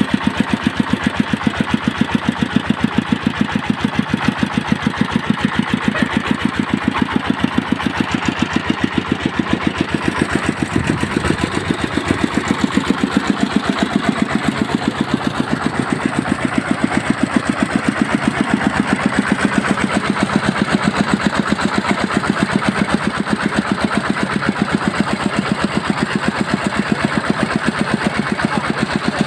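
Single-cylinder horizontal diesel engine of a mobile rice huller running steadily at idle, with an even, regular pulsing beat.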